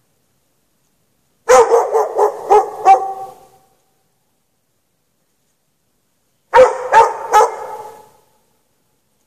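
A dog barking in two runs: about five quick barks, then three more a few seconds later, each run trailing off in a short echo.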